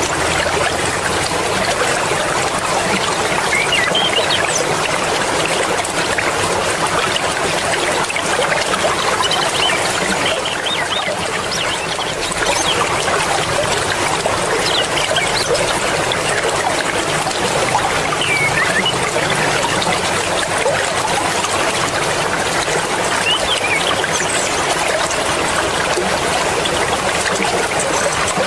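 Fast-flowing mountain river rushing and splashing over rocks, a steady dense wash of water noise with many small splashes and gurgles.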